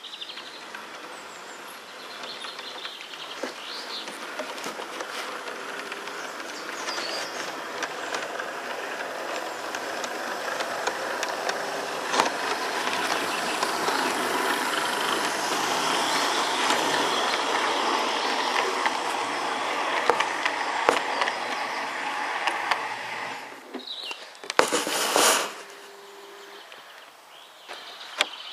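Garden-railway model multiple-unit train running along the track, its wheels clicking over the rail joints with a running hum. The sound grows louder as it approaches and passes, then drops off sharply about 23 seconds in. A short loud rushing noise follows soon after.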